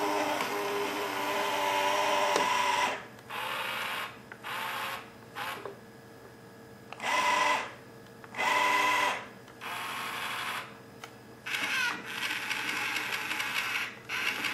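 Small electric gear motors of an Omnibot 2000 robot whirring, first steadily for a few seconds and then in a string of short starts and stops as its arm works at the can on its tray.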